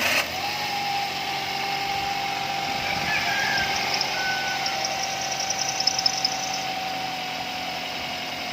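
Toyota Avanza's 3SZ 1.5-litre four-cylinder engine idling steadily just after starting, with a steady whine that slowly drops a little in pitch.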